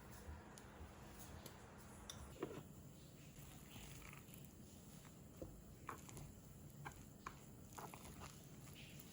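Near silence: faint room tone with a low hum and a handful of soft, scattered taps.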